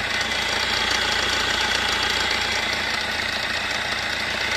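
2011 Fiat Punto engine idling with a steady knocking clatter. The mechanic takes the sharp 'tak' knock for a loose timing chain slapping against its gears, with idler and tensioner bearing noise mixed in.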